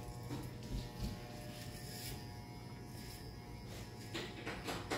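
Corded electric hair clippers buzzing steadily while cutting a boy's hair, with a few brief rustles near the end.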